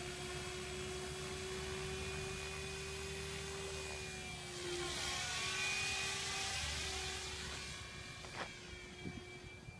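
MSH Protos radio-controlled helicopter with its rotor turning at a steady whine. A rushing rotor sound swells about halfway through as it lifts off and climbs, then fades as it flies away, with a couple of sharp clicks near the end.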